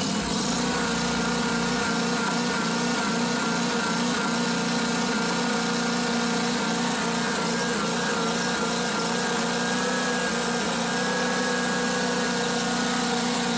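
John Deere mower's engine running steadily at full throttle. The engine has a vacuum leak from a missing Welch plug in the carburetor, which makes it surge at idle but makes little difference at this high speed.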